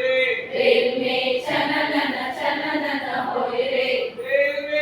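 A group of voices singing a Hindi song together in unison.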